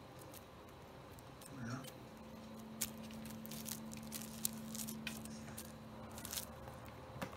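A kitten batting at a toy dangling on a cord, its paws and claws making scattered faint taps and light scratches on a wooden shelf. A low steady hum runs through the middle.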